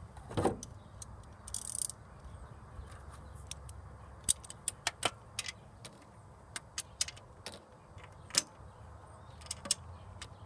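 Ratchet and socket working the distributor hold-down clamp bolt on a Chevy 350 small-block, snugging it up: scattered sharp metallic clicks and clinks, mostly in the second half.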